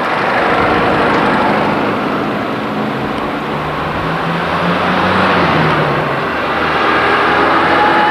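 Motor vehicle engine and road noise, loud and steady, with the engine pitch rising and then falling around the middle.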